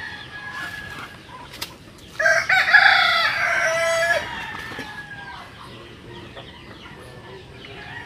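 A rooster crows once, loudly, for about two seconds starting about two seconds in, over fainter clucking and bird calls.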